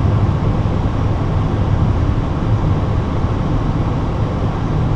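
Steady low rumble inside an Airbus A320 cockpit as the airliner rolls along the runway after landing: engine, airflow and wheel noise blended into one even drone.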